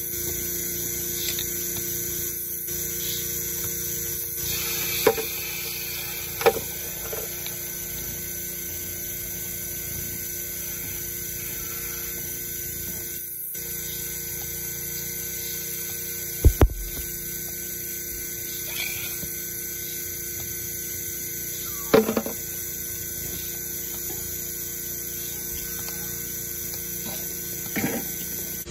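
Portable electric milking machine's vacuum pump running with a steady hum. A few sharp knocks and clicks come from the metal teat cups and claw as they are handled and put on the cow's teats, with one heavier thump partway through.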